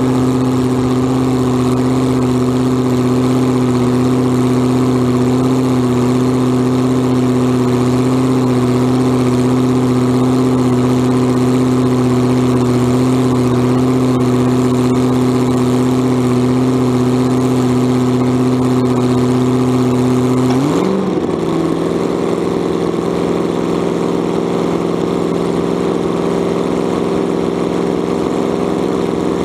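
Supercharged alcohol big-block Chevy in a front-engine dragster, idling steadily. About two-thirds of the way in, the note briefly rises, then settles into a lower, slightly quieter idle.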